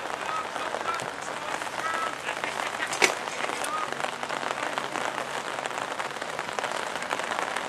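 Steady patter of rain close to the microphone, with faint distant shouts and one sharp knock about three seconds in.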